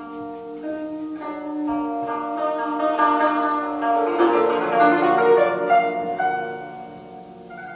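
Background music played on plucked strings, a slow melody of ringing notes that swells in the middle and softens near the end.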